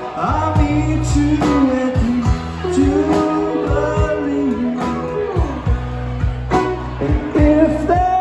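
Live band playing: drum kit keeping a steady beat, with electric bass, electric guitar and pedal steel, and a lead line sliding smoothly up and down in pitch.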